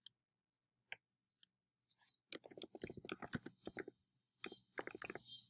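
Faint computer keyboard typing: a few single clicks, then from about two seconds in a quick run of keystrokes as a word is typed.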